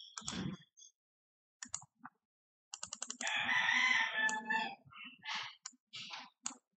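A rooster crowing in the background: one long crow of about two seconds in the middle. Around it are scattered sharp mouse clicks and a short thump right at the start.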